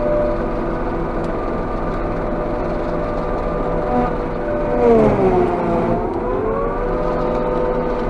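Claas Jaguar 830 self-propelled forage harvester running steadily while picking up a grass windrow, heard from inside the cab. About five seconds in, the engine pitch dips sharply and climbs back over about a second and a half.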